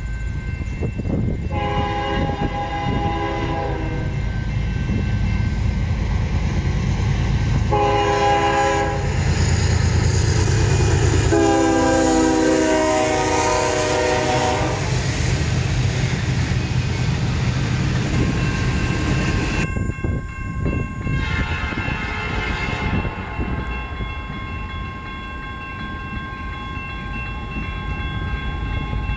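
CN diesel freight locomotive's air horn sounding three blasts as the train approaches and passes, the last the longest and loudest, over the steady rumble of the locomotive and rolling freight cars. Near the end a fainter horn and a steady high ringing tone sound.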